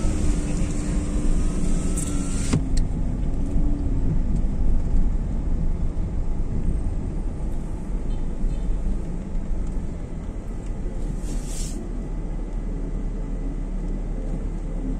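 A car driving slowly, heard from inside its cabin: a steady low engine and road rumble, with a humming tone that drifts in pitch during the first few seconds.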